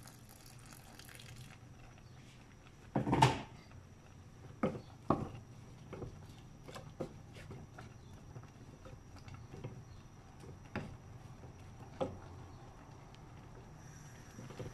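Hot water from a kettle pours briefly into a cooking pot, then a loud knock, followed by a wooden spatula stirring the mung bean stew, knocking and scraping against the pot in scattered clicks.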